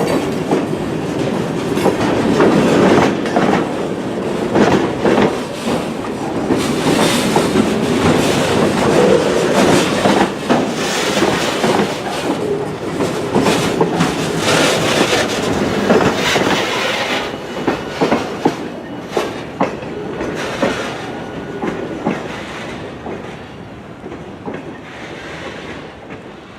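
Train rolling past at close range, its wheels clacking over the rail joints. The sound fades away over the last several seconds as the train moves off.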